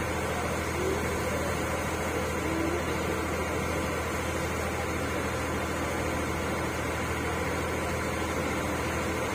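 Boat engine running steadily, a constant even hum.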